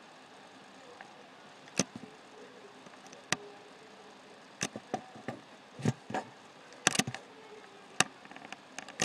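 Computer mouse buttons clicking: about a dozen short, sharp clicks at irregular intervals, some in quick pairs, over a faint steady hiss.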